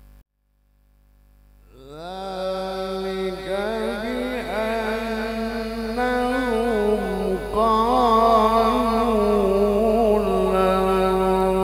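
A man's voice in melodic Quran recitation (qira'ah). It enters about two seconds in on a long held note that rises, then runs on in slow, wavering ornamented phrases.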